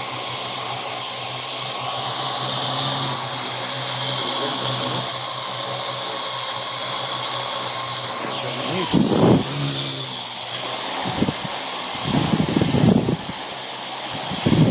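Parrot AR.Drone quadcopter hovering, its four electric motors and propellers running with a steady whirring hiss. In the second half there are several short gusty rushes.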